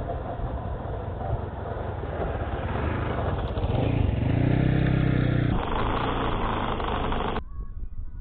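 Daelim DX250 motorcycle's single-cylinder engine running as the bike approaches and rides close past. It grows louder to a peak about halfway through, then cuts off abruptly near the end.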